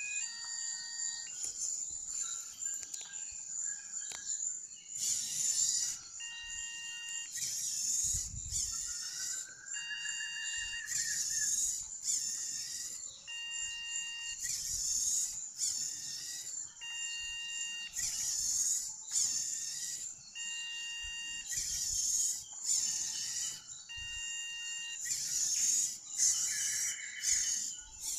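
Music with a regular beat and short repeating pitched notes, over a steady high-pitched tone.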